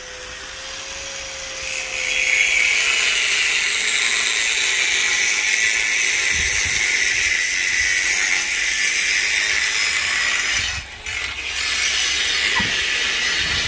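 Power tool grinding steel during truck-frame reinforcement work: a steady, harsh scraping hiss that starts about two seconds in and briefly drops out near eleven seconds.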